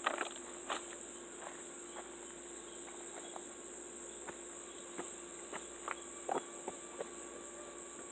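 Steady, high-pitched continuous trill of crickets, with scattered faint clicks and taps and a low steady hum underneath.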